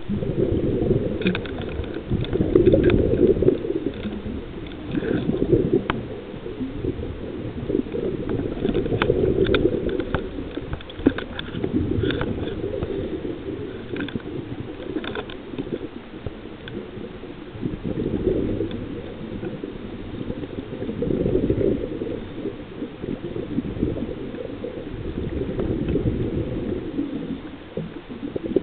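Muffled underwater noise heard through a waterproof camera housing, swelling and fading every few seconds, with scattered light clicks.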